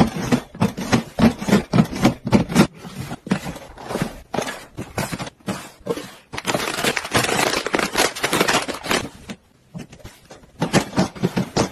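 Snack boxes and plastic-wrapped packages handled and set into a white plastic storage cabinet: a quick run of taps, knocks and packaging rustles, with a longer stretch of rustling about halfway through.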